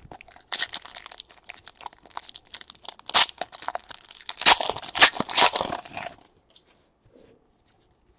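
Foil wrapper of a 2018 Panini Donruss baseball card pack crinkling and being torn open by hand: a run of crackling from about half a second in until about six seconds in, with several sharper, louder rips along the way.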